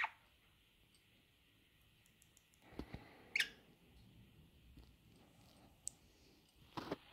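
Budgerigar making a few faint clicks and one short chirp about halfway through, over quiet room tone.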